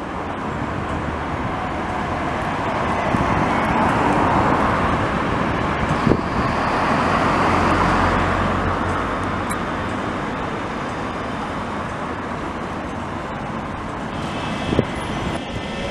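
City road traffic: cars driving past on the street, one passing loudest about halfway through. Near the end an approaching tram adds a faint high whine.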